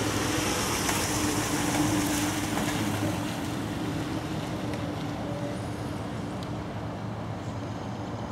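A motor vehicle's engine hum with road noise, a little louder in the first few seconds, then steady.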